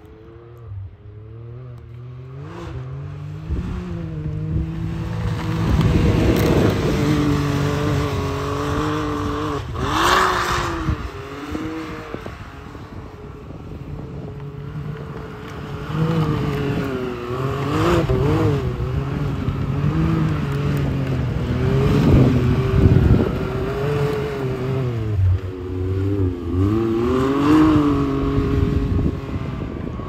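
Can-Am Maverick X3 XRS side-by-side's engine revving up and down over and over as it is driven hard through snow and over jumps. It is loudest from about a fifth of the way in and through most of the second half.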